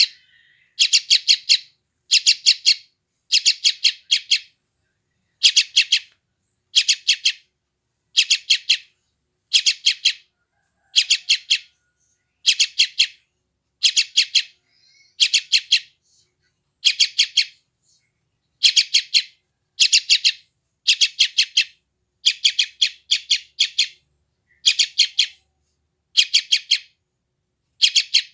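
Yellow-vented bulbul chick giving its begging calls: quick bursts of three to five high chirps, repeated about once a second with a few brief pauses. These are the calls of a hungry young bird.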